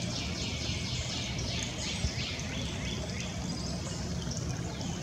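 A songbird singing a rapid series of down-slurred whistled notes, about four a second, for the first two seconds and again near the end, over a steady low background rumble.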